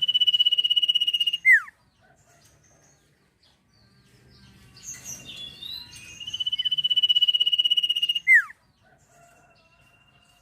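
Sirtu (sirpu) songbird singing two long, high, rapid trills on one pitch, one at the start and one about six seconds in. Each ends with a sharp falling whistle, and faint softer calls come in between.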